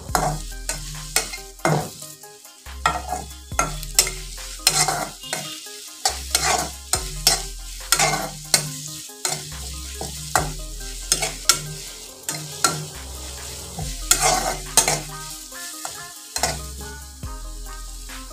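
Spatula scraping and stirring chopped onions, garlic and green chillies frying in hot oil in a kadai, with the oil sizzling. The scrapes come about every half second to second and grow sparser near the end.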